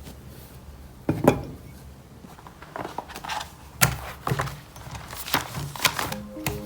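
A scattered series of light knocks and clicks, the loudest about a second in and again near four seconds in, with music starting just before the end.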